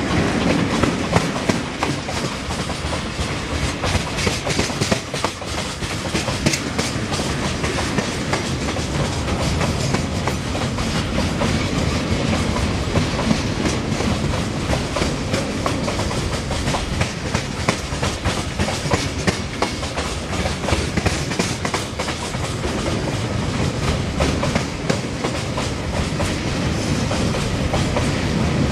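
Open freight wagons of a long goods train rolling past close by, wheels clattering steadily over the rail joints in a dense run of clicks over a low rumble.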